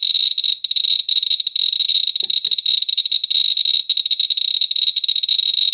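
CDV-700 Geiger counter clicking through a small add-on speaker, the clicks so fast that they run together into a dense, high-pitched crackle. This is a high count rate from the radium luminous paint on a WWII aircraft gauge, with the meter reading around 4 milliroentgens an hour.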